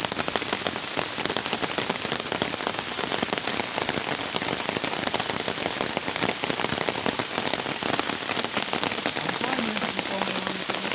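Heavy rain falling steadily, a dense crackle of countless drops hitting water and leaves.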